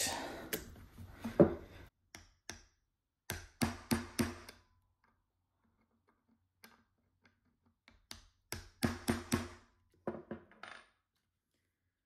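Hammer tapping a metal punch held on a partly drilled-out Swiss Army knife rivet: groups of sharp metallic taps with a brief ring. There are a few taps at the start, three or four about four seconds in, and a quicker run of taps about nine seconds in.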